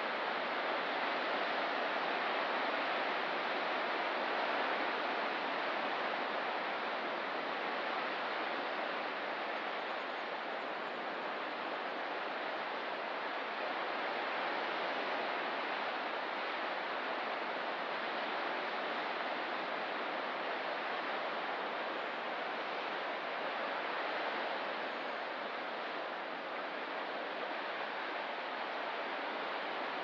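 Ocean surf washing around coastal rocks: a steady rushing wash that swells and eases slowly.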